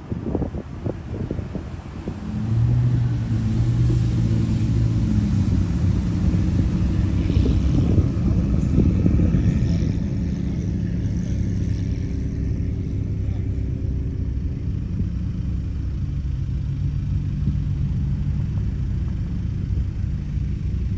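Engine noise: a car approaches with rough, popping exhaust in the first couple of seconds, then a steady low engine drone carries on.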